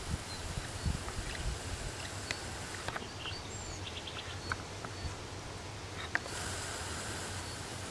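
Outdoor ambience: a steady low rumble of wind on the microphone, with scattered small clicks from the handheld camera and a few faint high chirps near the middle.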